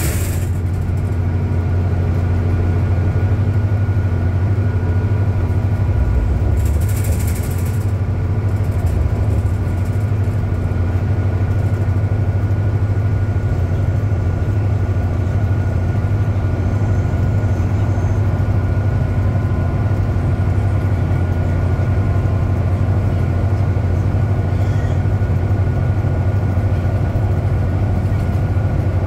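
Interior drivetrain noise of a 2010 New Flyer DE60LF diesel-electric hybrid articulated bus with a Cummins ISL diesel engine, heard from inside the cabin while under way. A steady low drone carries a few steady higher tones over it. A brief rattling burst of noise comes about seven seconds in.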